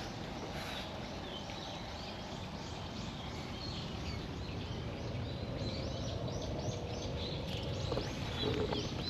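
Outdoor background with a bird calling in a quick run of short, high chirps through the middle stretch, over a steady low rumble of distant noise.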